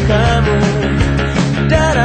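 Pop-rock band music in an instrumental passage: a wavering lead melody line over bass and a steady drum beat.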